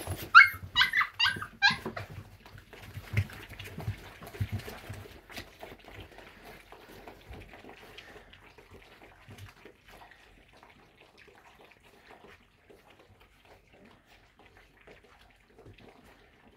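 Puppies yelping five times in quick succession, each a short high cry that falls in pitch, then lapping and smacking as the litter eats from a shared bowl, growing fainter.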